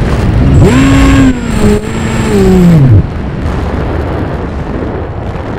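RC aircraft's motor whining. Its pitch rises, holds, then drops away and stops about three seconds in, over loud wind rush.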